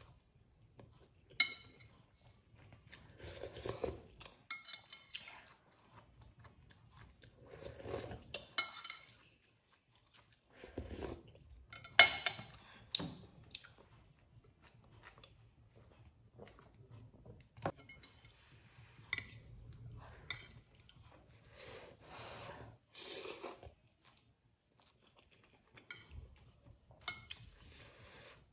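Close-up eating sounds: instant noodles slurped and chewed in bursts, with metal fork and spoon clinking on a plate. One sharp clink about twelve seconds in is the loudest sound.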